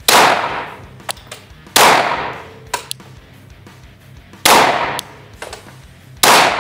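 Glock pistol firing four single shots, one to three seconds apart, each followed by a short ringing echo, with light clinks between the shots.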